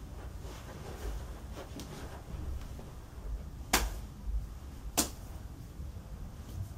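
Hands clapping and patting in a two-person hand-clapping handshake: light taps throughout, with two sharp, loud smacks of hands about halfway through and just over a second later.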